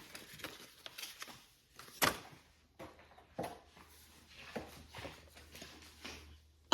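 Faint scattered clicks and light knocks of handling, with one sharper knock about two seconds in, over a low steady hum.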